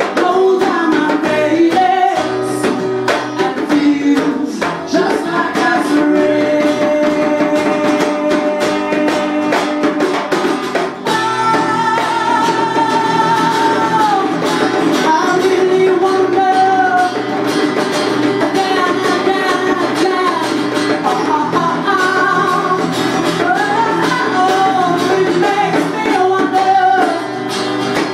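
Live acoustic music: a woman singing over acoustic guitar and djembe hand drums, with long held sung notes about halfway through.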